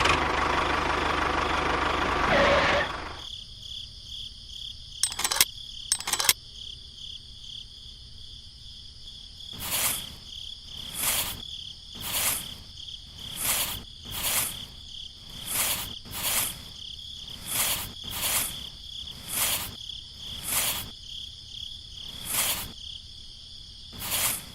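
A small engine running cuts off about three seconds in. Then insects trill steadily, and from about ten seconds in a pulsing insect call repeats roughly once a second.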